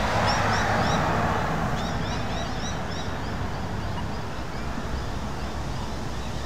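A car driving past, its tyre and engine noise loudest at first and easing off over the first two seconds or so. Over it, a bird chirps in quick runs of short high notes.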